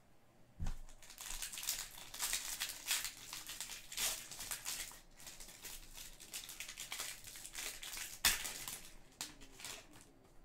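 A trading card pack's foil wrapper crinkling and tearing as it is handled and opened by hand. There is a low thump about half a second in and a sharp click near the end, the loudest moment.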